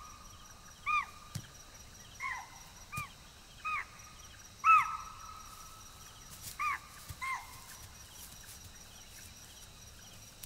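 Deer giving loud, clear alarm calls at a stalking tiger: about seven short, sharp barks, each rising and falling in pitch, at irregular intervals. The loudest comes a little before the middle. Faint insects chirr underneath.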